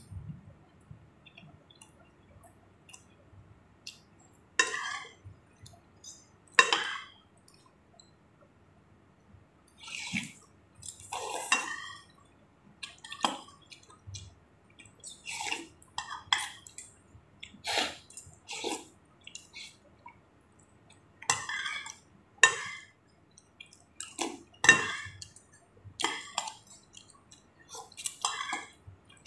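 Close-up eating sounds of chicken thukpa noodle soup: repeated slurps of noodles and broth with chewing and utensil clinks, coming every second or two.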